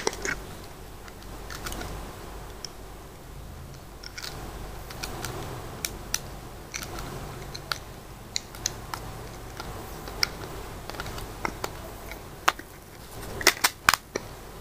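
Scattered small sharp clicks and taps of a smartphone being handled while an SD card is fitted into it, over a low steady hum. A quick run of louder clicks comes near the end.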